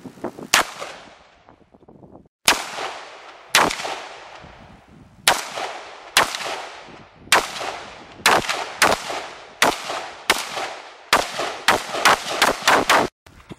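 AR-15 rifle firing a string of about sixteen single semi-automatic shots, each a sharp crack with a short fading tail. The shots come a second or two apart at first, then quicken into a rapid run of about six near the end.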